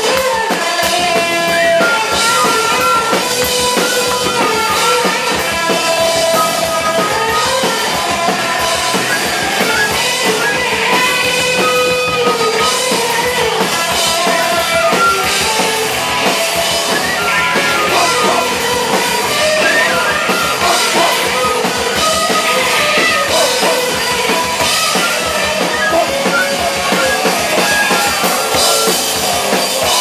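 Live rock band playing a song: electric guitar lines over a busy drum-kit beat.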